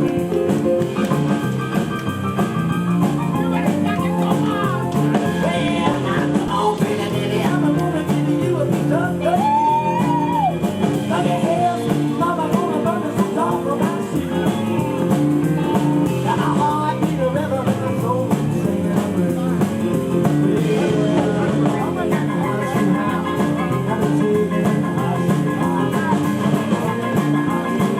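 Live rock and roll band playing with electric guitar, a rockabilly number in the Sun Records style.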